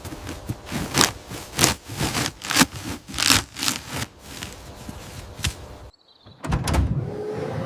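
A run of short, sharp strokes, two or three a second, that stops abruptly about six seconds in. After a brief silence come a couple of low thuds, and a steady hum starts near the end.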